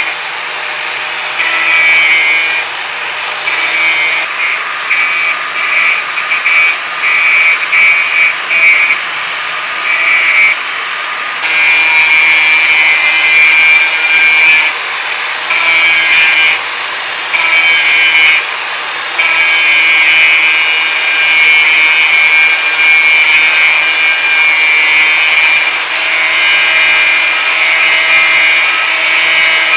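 Angle grinder running at high speed with its disc against metal, making a high-pitched grinding whine. Through the first half the disc is put to the metal in many short passes a second or so long; later it stays on in longer steady passes.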